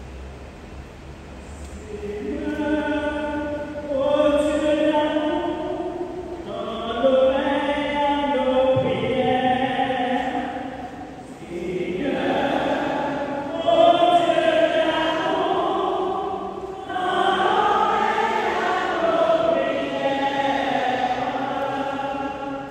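A congregation singing together in slow, chant-like phrases, a sung refrain of the universal prayer. The singing comes in about two seconds in and goes on in several long phrases with brief breaths between them.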